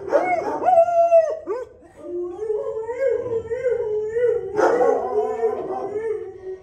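A dog howling in long, wavering, whine-like notes. It dips briefly about two seconds in and starts afresh about four and a half seconds in.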